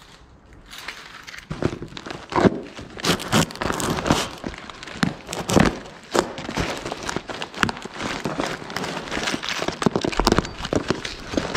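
Cardboard shipping box being opened and unpacked by hand: packaging crinkling and rustling, with irregular knocks and scrapes of cardboard. It starts about a second in and goes on unevenly.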